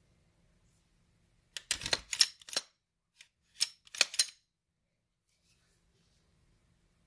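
Handling noise from a Glock 17 pistol being turned over in the hands: two short clusters of clicks and rubbing, about two seconds apart.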